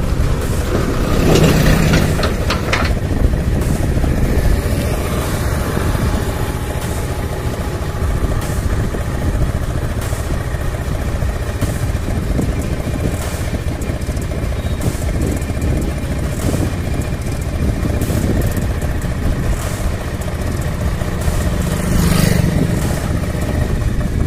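Motorcycle being ridden along a paved road, its engine running steadily under wind and road rumble. A backhoe loader's diesel engine passes close by a second or two in, and there is a second brief swell of passing-vehicle noise near the end.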